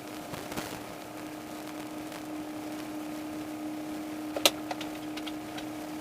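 A steady mechanical hum with one clear pitch, with a sharp click about four and a half seconds in and a few lighter clicks just after.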